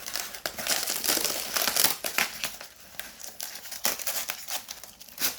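Packing tape being peeled and torn off a cardboard box: irregular crackling and crinkling, busiest in the first two seconds.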